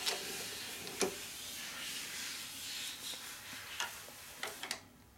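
A few sharp metallic clicks as a dial indicator and its holder are fitted to a milling machine spindle, over a steady hiss that stops shortly before the end.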